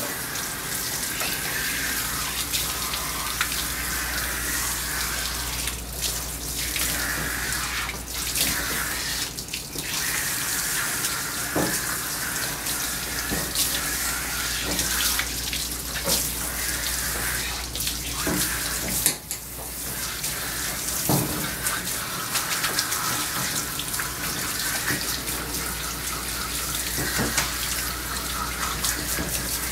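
Water spraying from a handheld grooming-tub sprayer onto a small dog's wet coat, a steady hiss with a few brief breaks.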